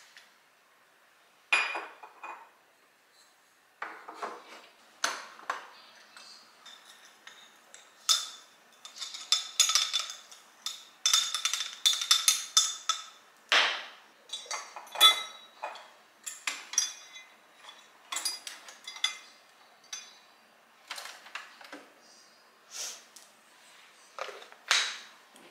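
Glassware being handled while making loose-leaf tea: a glass mug and a glass jar set down and knocked on a stone countertop, and a wooden jar lid put down. In the middle comes a busy run of ringing clinks of glass and a metal tea-infuser spoon.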